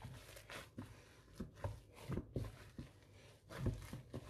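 Gloved hand kneading a sticky dough of crushed rice cakes, tomato paste and water in a bowl: irregular soft thumps and smacks as the dough is pressed and worked.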